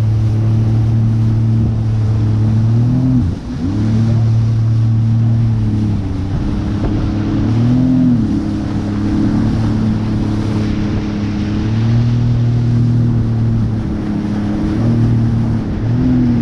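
Jet ski engine running hard under way. Its pitch drops sharply and recovers about three seconds in, then wavers down and up several more times as the throttle is eased and opened again.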